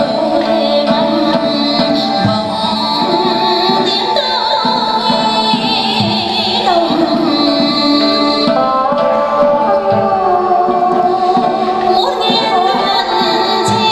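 Traditional Vietnamese music accompanying a water puppet show. Singing is heard over an instrumental ensemble, with a few low drum beats.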